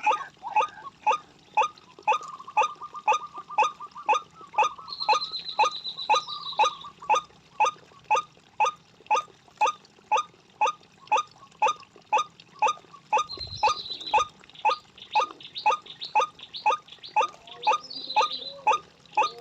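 White-breasted waterhen calling, a rapid, even series of harsh notes, each sweeping downward, about two or three a second without a break.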